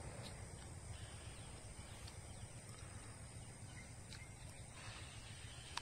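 Faint outdoor ambience: a steady low rumble with a few short, faint bird calls spaced a second or two apart.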